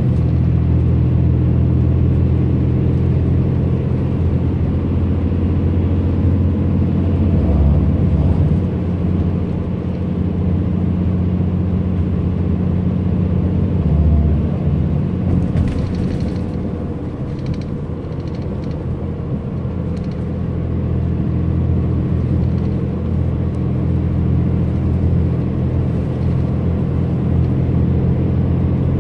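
Steady low rumble of a bus's engine and tyres heard from inside the passenger cabin while driving through a road tunnel, with a few faint rattles about halfway through.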